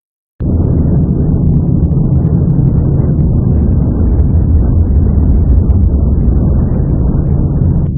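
Rocket engine at launch: a loud, steady, deep noise with crackle on top. It starts abruptly after a brief gap of silence at the start and changes to a muffled, duller sound right at the end.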